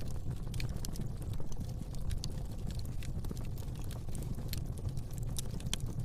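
Fire burning in a fireplace: irregular sharp crackles and pops over a steady low rumble of flame.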